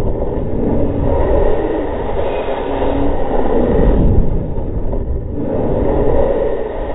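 Wind rushing past a GoPro packed inside a bowling ball as it tumbles through the air after being fired from a black-powder cannon. Slowed to a quarter speed, it comes out as a deep, steady rumble that swells and fades several times.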